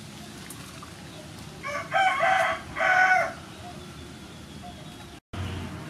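A rooster crowing once, a loud multi-part call starting about one and a half seconds in and lasting under two seconds, over a faint steady hiss.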